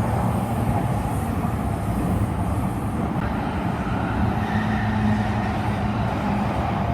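Train running: a steady rumble with a low hum that swells briefly about four seconds in.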